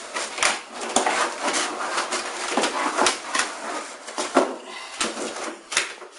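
Unpacking noise: cardboard packaging rustling and scraping, with repeated knocks and clatter as a long aluminium Speedskim skimming rule is handled and lifted out of its box.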